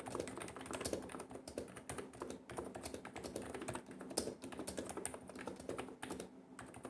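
Typing on an AKBO K965 V2 keyboard with 55 g NIZ Topre-style switches: a steady, fast run of key strokes with brief lulls, and one stronger stroke a little past the middle.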